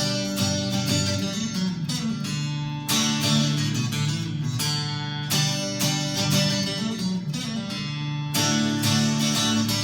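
Fender Telecaster electric guitar played with a clean tone on its neck pickup, strumming a run of chords, each struck sharply and left to ring.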